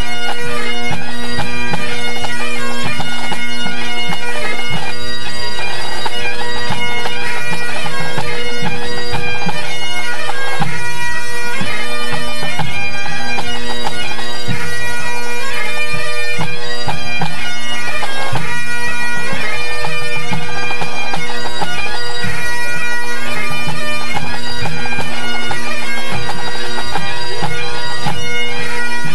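A pipe band's Great Highland bagpipes playing together during a tune-up: steady drones held under shifting chanter notes.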